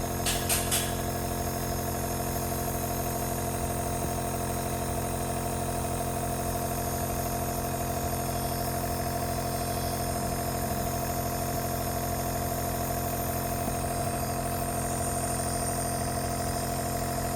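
Compressor nebulizer running with a steady, even mechanical hum. A few sharp clicks sound in the first second.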